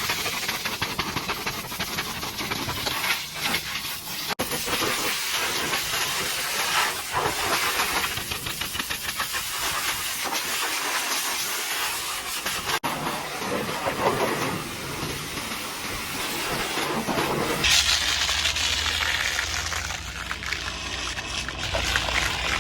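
High-pressure washer jet spraying water against a truck's body and blasting off caked mud, a loud, shifting hiss that cuts out for an instant twice. A low hum comes in near the end.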